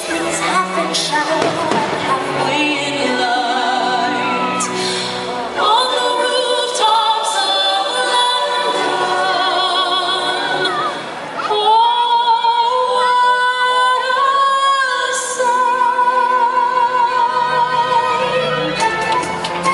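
Fireworks-show soundtrack music with singing voices holding long notes over an orchestral backing, with a few sharp bangs among it.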